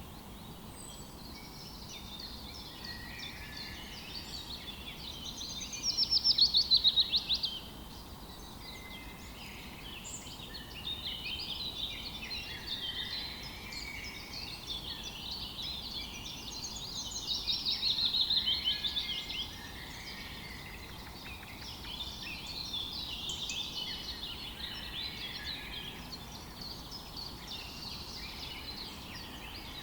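Several songbirds chirping and singing together over a steady background hiss, with louder rapid trills about six seconds in and again around eighteen seconds.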